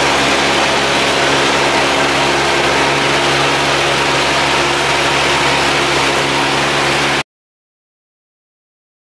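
Cabin drone of a light single-engine high-wing airplane in cruise: the piston engine and propeller run at a steady pitch, with a loud rush of air over the cabin. The sound cuts off abruptly about seven seconds in.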